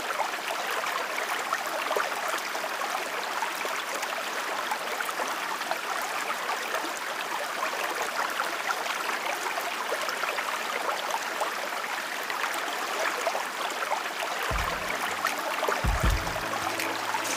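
Running water, a steady even hiss. Low music notes come in under it near the end.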